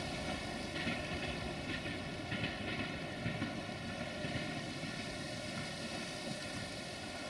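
Siemens Desiro VT642 diesel multiple unit moving off after passing, a steady diesel engine drone with wheel-on-rail noise slowly fading.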